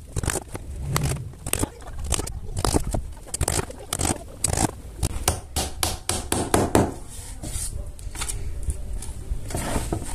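Hammer tapping nails into the plywood panels of a small speaker box, a quick, irregular run of sharp taps that thins out near the end.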